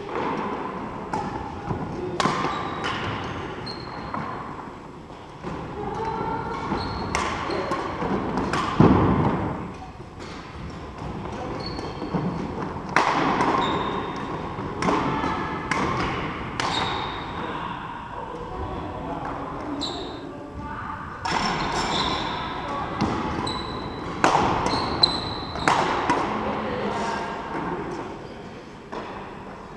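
Badminton doubles rally: repeated sharp racket strikes on a shuttlecock and short squeaks of court shoes on a wooden sports-hall floor, echoing in a large hall.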